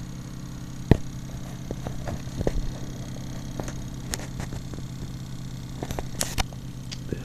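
Rewound CPU-fan Bedini pulse charger running, its transistor-switched coils giving a steady low hum of several evenly spaced tones while it charges a battery. A few sharp clicks cut in, the strongest about a second in.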